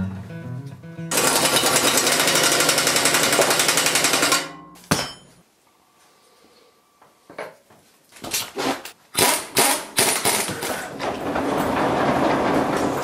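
Fast rattling of a ratchet wrench for about three seconds, then a pause, then a run of separate clicks and knocks from wrench work on a tractor's steering linkage.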